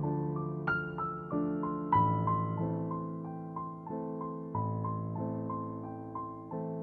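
Background music: a gentle piano tune of single notes struck every quarter to half second and left to ring, over sustained lower chords.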